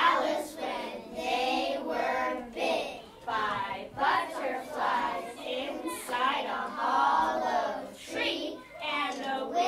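A group of young children singing together in unison, phrase after phrase without a break.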